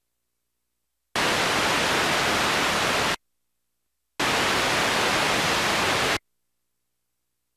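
Two bursts of steady hiss-like static, each about two seconds long, that switch on and off abruptly with dead silence between them: audio noise from a blank stretch of home videotape while the player shows its blue no-signal screen.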